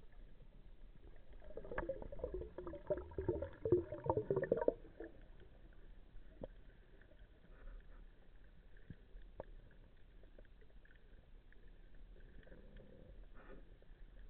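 Underwater bubbling and gurgling for about three seconds, starting a second and a half in, then a faint steady hiss with a few scattered sharp clicks.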